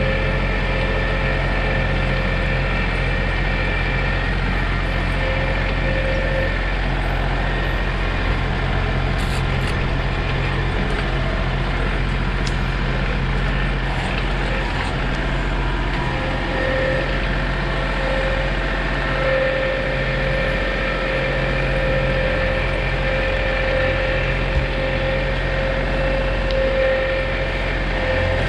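John Deere 2032R compact tractor's three-cylinder diesel engine running steadily, with a thin whine in the first few seconds and again from about halfway on.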